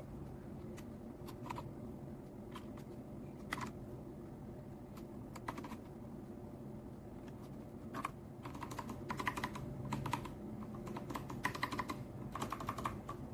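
Keys of a mechanical keyboard fitted with ABS cat-paw keycaps clicking as they are pressed: scattered single presses at first, then quick bursts of typing over the last five seconds or so.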